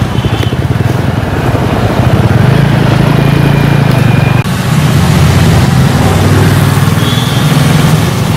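Motor vehicle engine running close by, a steady low drone with a fast, even pulse, with a brief break about four and a half seconds in.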